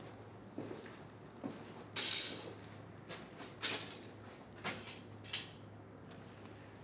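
Footsteps scuffing on a gritty concrete floor: about seven short, irregular scrapes, the loudest about two seconds in, over a faint steady low hum.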